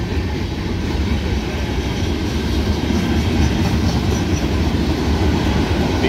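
Freight cars rolling past close by: a steady, loud rumble of steel wheels on the rails.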